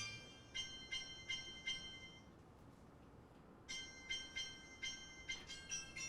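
A bell-like melody of high chiming notes, struck about three a second in two short phrases with a pause between them.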